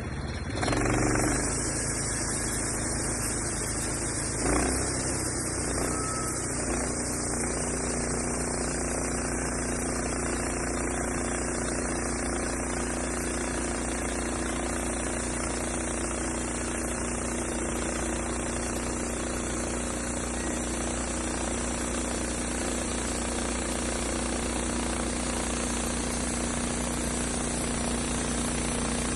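An engine running steadily at a constant speed. It gets louder about a second in, with a brief surge a few seconds later, then holds an even pitch.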